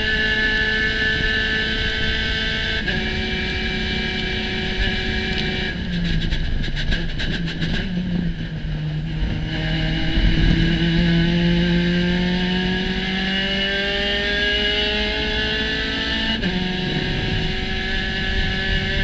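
Spec Racer Ford Gen 3 race car's engine under hard acceleration, heard onboard. There is an upshift about three seconds in. It is off the throttle with a quick run of clicks between about six and nine seconds, then the revs climb steadily out of the corner to another upshift near the end.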